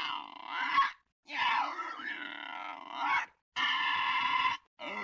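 Vintage-cartoon comedy vocal effects: a run of short lo-fi squawking cries, each a second or two long, parted by brief silences. Three starts fall inside, the last about five seconds in.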